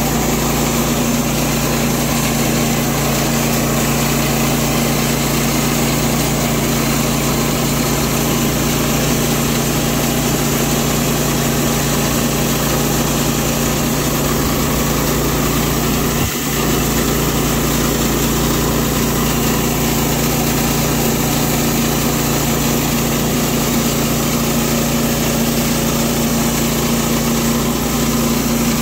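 Woodland Mills HM122 bandsaw mill running steadily, its engine-driven blade sawing through a pecan log. There is one brief dip in the sound a little past the middle.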